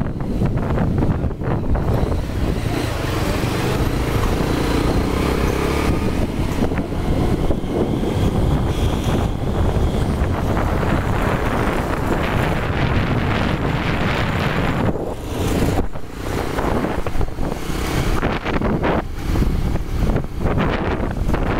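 Motorcycle running as it rides along, with wind rushing over the microphone.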